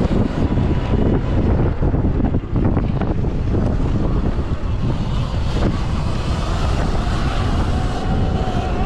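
Onboard sound of a stock Sur Ron X electric dirt bike racing on a dirt motocross track: wind buffeting the microphone over the rumble of knobby tyres on dirt, with scattered knocks from the bike over bumps. A faint electric-motor whine shows through, clearer near the end.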